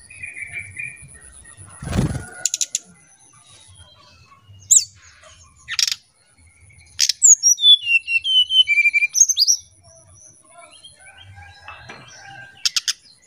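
Brown-chested jungle flycatcher singing: sharp high chirps, then a falling run of clear, flute-like whistled notes from about seven to nine and a half seconds in. There is a short thump about two seconds in.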